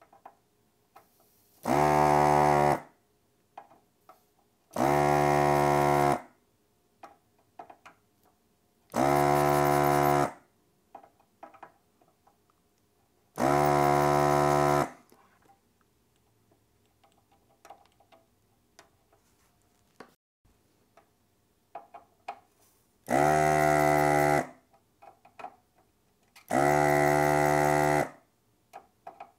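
The vacuum pump of a Hakko FR-301 desoldering gun runs in six short buzzing bursts of about a second each, pulling molten solder out of circuit-board through-holes one pin at a time. Light clicks and taps from the tool fall between the bursts.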